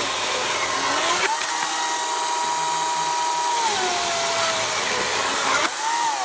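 EGO CS1800 56V cordless electric chainsaw cutting through a wooden block under hard down pressure: its steady motor whine sags in pitch as the chain loads up and recovers, but the motor does not stall. Near the end the saw comes free and the whine rises briefly, then falls away.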